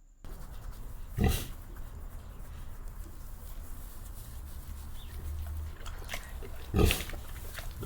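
Pig grunting over steady background noise, with two louder grunts, one about a second in and one near the end.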